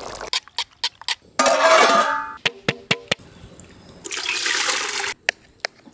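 Water poured from a steel bowl into a metal cooking pot, splashing loudly in two bursts about two and a half seconds apart, with sharp clicks and clinks between them.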